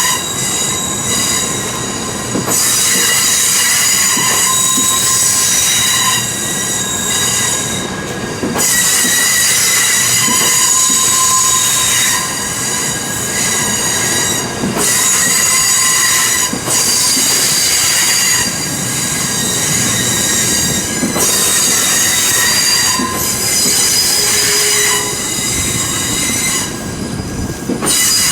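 700 series Shinkansen train moving slowly, its steel wheels squealing against the rails. Several high, steady squeal tones stop and restart every couple of seconds over the rumble of the wheels.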